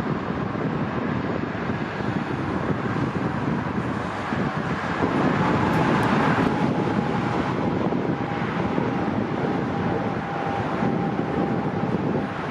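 A Boeing 777-300's jet engines at taxi power, heard from a distance as a steady rumble, with a faint whine in the middle. Wind buffets the microphone.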